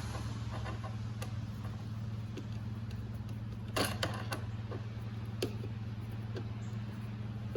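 A silicone intake coupler being pushed and worked onto its fittings by hand: scattered small creaks and knocks, one louder knock about four seconds in, over a steady low hum.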